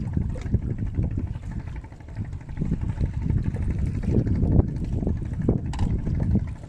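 Wind buffeting the microphone, an uneven low rumble that swells and drops, with no engine tone in it.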